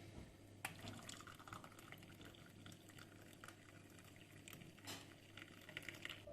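Faint liquid sound with scattered light clicks and taps, the two sharpest near the start and about five seconds in.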